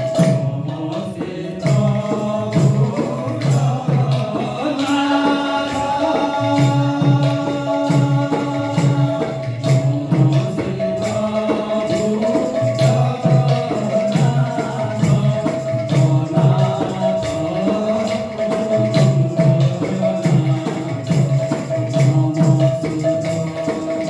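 Odia devotional kirtan music: sung melody over a steady held note, with jingling hand percussion and drum keeping a fast, even beat.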